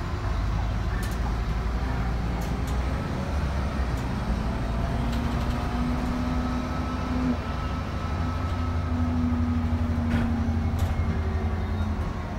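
City bus driving, heard from inside at the front of the cabin: a steady low engine and drivetrain rumble with a whine that holds level for a few seconds at a time, twice, and a few faint clicks.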